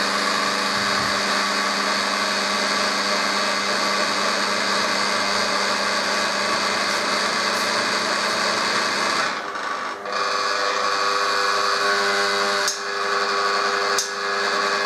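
Electric motor newly mounted on a Holbrook B9 lathe, running steadily with a hum and buzz and driving through a belt set to slip. The noise is partly electrical and partly the unsprung motor plate vibrating and buzzing. The level dips briefly a little past halfway, after which the hum's tone shifts slightly, and dips once more near the end.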